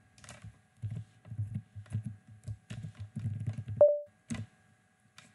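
Typing on a computer keyboard: an irregular run of key clicks with soft thumps, entering a terminal command. About four seconds in, a short computer alert beep is the loudest sound, then two more keystrokes follow.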